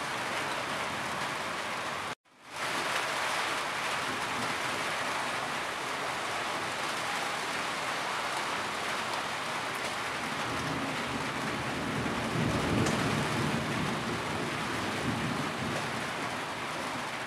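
Heavy rain falling steadily. It cuts out for an instant about two seconds in and fades straight back, and a low rumble swells under it a little past the middle.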